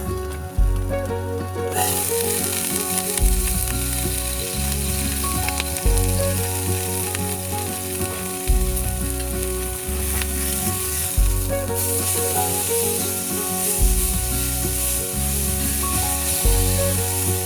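Food sizzling in a hot pan, the hiss starting suddenly about two seconds in, with background music and a steady bass line underneath.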